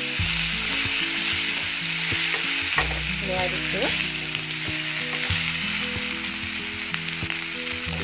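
Capsicum and potato pieces sizzling in hot oil in a kadai while being stirred with a wooden spatula, with scattered clicks and scrapes of the spatula against the pan over a steady sizzle.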